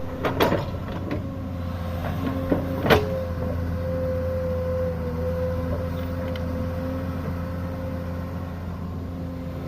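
Excavator engine running steadily with a steady whine above it, and several sharp knocks in the first three seconds, the loudest about three seconds in.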